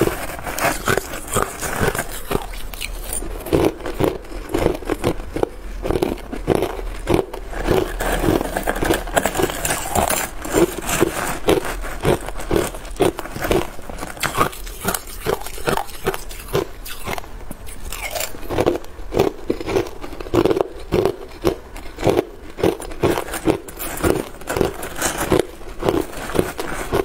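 Crushed ice being bitten and chewed close to the microphone: a steady run of sharp, crisp crunches, several a second.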